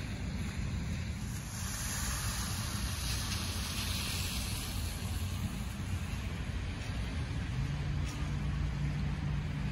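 Car traffic on wet pavement, a steady hiss of tyres over a low rumble, with a steady low hum joining about two seconds before the end.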